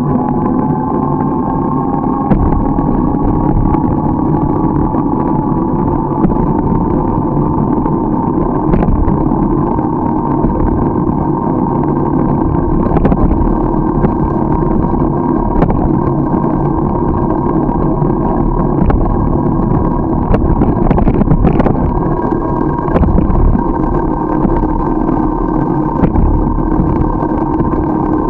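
Bicycle ride heard from a camera on the bike: steady rush of wind and tyre noise with a constant hum whose pitch rises slightly at the start and then holds, and scattered clicks and knocks from bumps in the road.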